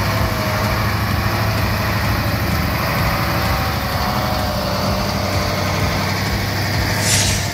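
Heavy KamAZ dump truck's diesel engine running steadily at low revs as the truck crawls through deep mud, an even low drone. A short whoosh near the end.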